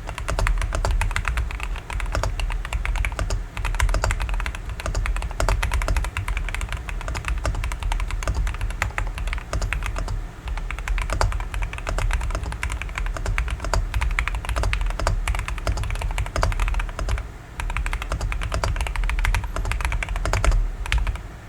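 Continuous fast typing on an Epomaker Shadow-X mechanical keyboard fitted with Mulan switches: a dense, unbroken stream of keystroke clicks, many per second.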